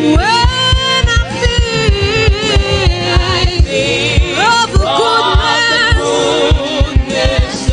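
Gospel worship song: a singer's voice gliding through runs and held notes over the band, with a steady low drum beat.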